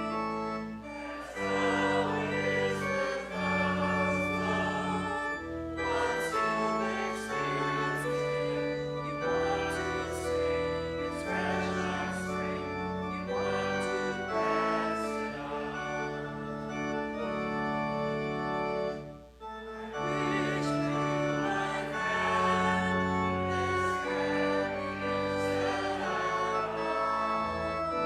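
Congregation singing a hymn with organ accompaniment, held chords under the voices; the music breaks off briefly about nineteen seconds in, between lines, then goes on.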